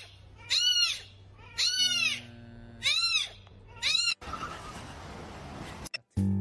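Very young kitten mewing four times, about once a second, each cry rising then falling in pitch. After the last cry comes a steady hiss for a second and a half or so.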